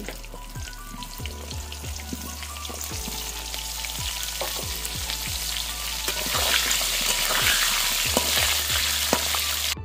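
Cauliflower florets sizzling as they fry in hot oil in an iron kadai. The sizzle grows louder, stepping up about six seconds in, and a metal spatula stirring through the pieces adds light clicks and scrapes.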